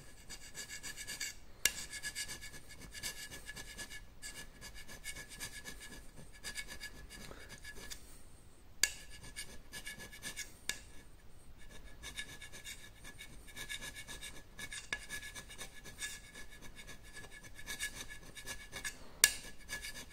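A Biax-type electric power scraper running with a steady buzzing whine while its flat blade scrapes metal off the high spots of a blued surface plate, with scratchy strokes. The whine drops out briefly twice, and a few sharp clicks sound, about a second and a half in, near the middle and near the end.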